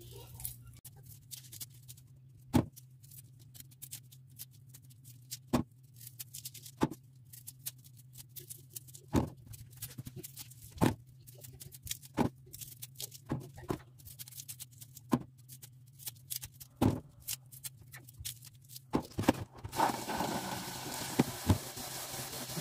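Garlic cloves being peeled by hand: irregular sharp clicks and taps of the cloves and their skins against the work surface, over a steady low hum. A rustling noise rises near the end.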